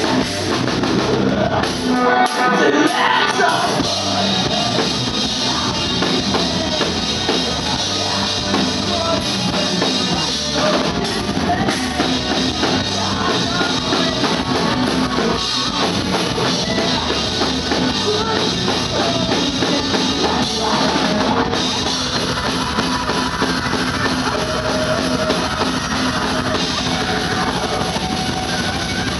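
Live heavy metal band playing: a female vocalist singing into a microphone over distorted electric guitar, bass guitar and a drum kit. The low end drops out for a moment about two seconds in, then the full band carries on.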